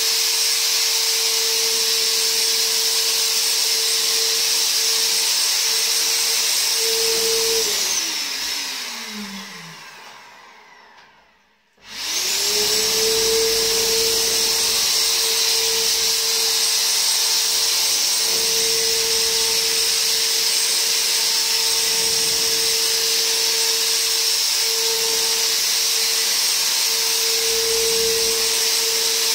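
Handheld electric fogger's motor running with a steady whine and a strong hiss as it sprays insecticide against bed bugs. About eight seconds in it is switched off and winds down, falling in pitch, then is switched back on about twelve seconds in and spins up to the same steady whine.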